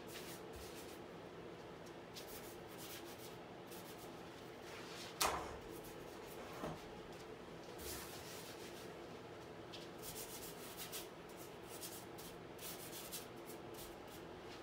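Paintbrush rubbing and dabbing on a canvas in short, faint, scratchy strokes at irregular intervals. A single sharp knock about five seconds in, with a softer one a moment later.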